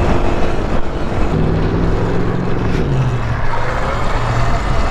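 Vehicle noise with a loud rumble, and a low motor hum partway through that drops slightly in pitch.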